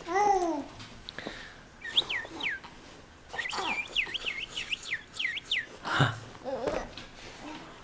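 A baby's short coo at the start and another coo near the end. Between them come two runs of quick high chirps, like a small bird's, several a second.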